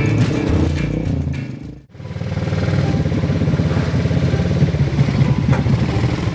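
Background music that fades out about two seconds in, followed by a small petrol engine idling with a steady, rapid putter.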